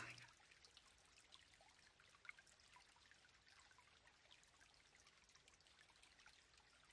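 Near silence with a faint trickle of water: the nutrient solution flowing through the hydroponic tomato tank.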